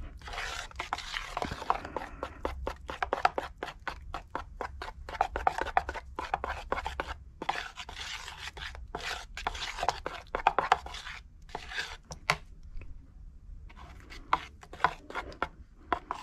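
Metal spoon stirring wet plaster of Paris in a glass mixing bowl, with quick, repeated scraping and clicking of the spoon against the glass. It is mixing freshly added water through the plaster toward a creamy-peanut-butter consistency, and goes quieter for a moment about twelve seconds in before picking up again.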